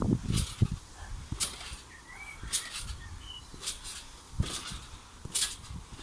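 Garden trampoline in use: dull thuds as she lands on the mat, with short hissing spring creaks about once a second.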